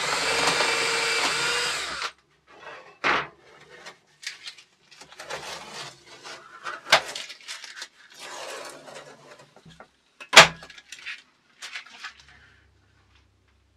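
Cordless drill running, boring through thin galvanised steel sheet for about two seconds, then stopping suddenly. After that the sheet is rustled and knocked about on the bench, with a sharp metallic knock about ten seconds in, the loudest sound of all.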